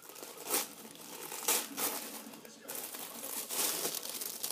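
Tissue-paper gift wrapping crinkling and rustling in irregular bursts as hands pull it open and bunch it up.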